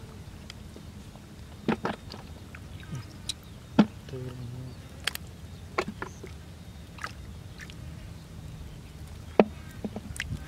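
Scattered splashes and slaps in shallow muddy water, about half a dozen sharp hits over a low steady rumble, with a short vocal sound about four seconds in.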